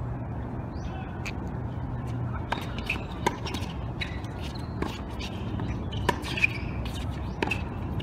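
Tennis rackets striking the ball in a fast doubles rally, with the ball bouncing on the court: sharp pops every half second to a second over a steady outdoor background hiss.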